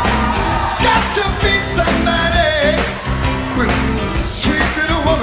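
Live rock band playing a soul-style song, with a male lead vocal singing over the band.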